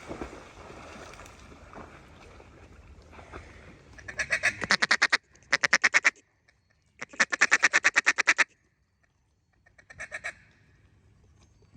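Mallard duck call blown in four fast runs of loud quacks, about ten a second, imitating a hen mallard to bring ducks in. The longest run lasts about a second and a half, and a short run comes near the end.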